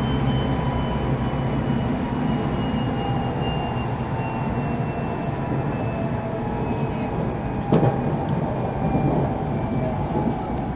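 JR Central 373 series train running under braking, its Toshiba GTO-VVVF inverter whine falling slowly in pitch as the train decelerates, over a steady wheel-and-rail rumble. A single sharp knock comes about eight seconds in.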